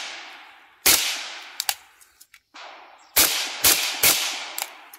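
AK-pattern rifle being fired from the shoulder: a single shot about a second in, then three quick shots about half a second apart, each ending in a fading echo.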